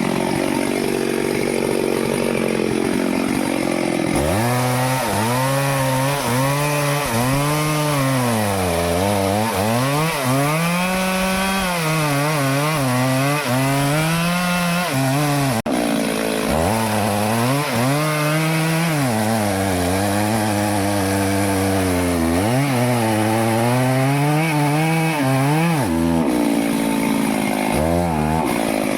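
Stihl chainsaw cutting teak: the two-stroke engine runs at high revs, its pitch repeatedly sagging as the chain bogs in the wood and picking back up. There is one sharp click about halfway through.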